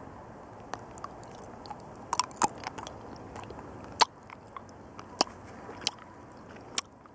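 Mouth sounds of someone chewing a soft chili-mango chewy candy: scattered sharp wet clicks and smacks over a low hiss, the loudest about four seconds in.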